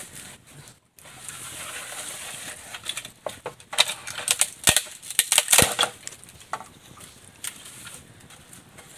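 Sharp crackles and knocks of bamboo at a campfire, bunched in a rapid cluster around the middle with two louder knocks, then a few single clicks, over a light steady hiss.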